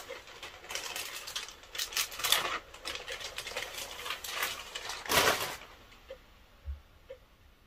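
Clear plastic bag crinkling and rustling as a laptop is slid out of it and the bag peeled off, loudest about five seconds in. Then a short, soft low thump near the end.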